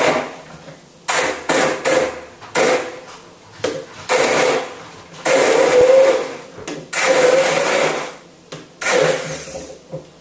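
Kenwood stick blender running in short bursts, starting and stopping about eight times with a wavering motor pitch, as it chops soaked whole almonds and dates in water into almond milk.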